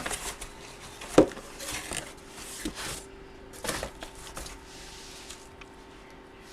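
Hands handling an opened cardboard box and its contents: a few sharp knocks and short rustling swishes, the loudest knock about a second in, then quieter handling toward the end.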